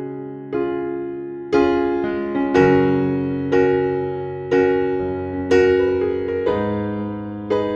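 Background music: a piano or electric piano playing sustained chords, about one new chord a second, each fading away before the next.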